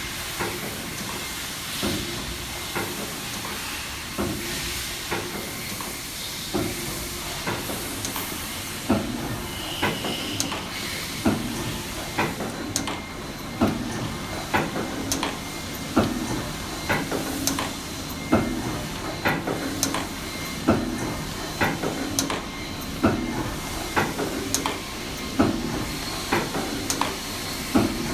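Test machine running a 30320CK tapered roller bearing: a steady hiss and hum with a sharp click about once every second or so, falling into a regular beat after the first few seconds.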